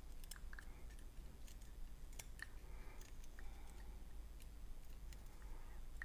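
Faint, scattered small clicks and ticks of tiny lock pins and springs being handled and picked apart during the disassembly of a pin-tumbler lock.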